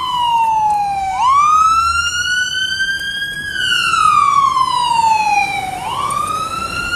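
Fire engine siren sounding a loud, slow wail. Its pitch falls, rises, falls and rises again in long sweeps of about two seconds each.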